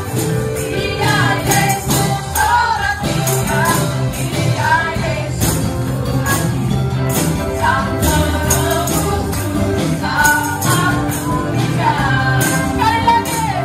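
Gospel praise song: a group of voices singing with a live church band, drums and percussion keeping a steady beat.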